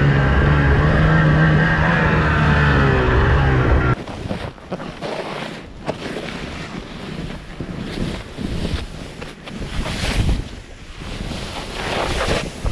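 A loud steady low-pitched sound cuts off abruptly about four seconds in. It gives way to a snowboard riding through powder: wind rushing over the body-mounted camera's microphone, with uneven swishes and surges as the board cuts through the snow.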